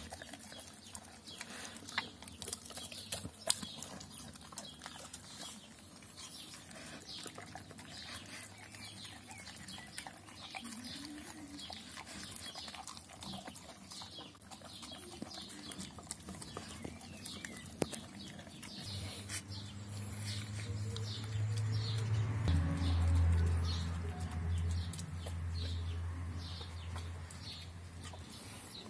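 A Doberman pinscher eating moist rice-and-meat food from a stainless steel bowl: wet chewing and smacking, with many short clicks of teeth and food against the metal bowl. About two-thirds of the way through a low hum swells, becomes the loudest sound, and fades near the end.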